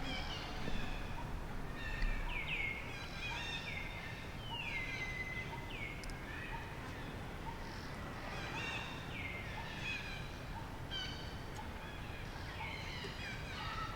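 Forest ambience: birds calling over and over in short groups of notes that slide downward in pitch, over a steady background hiss.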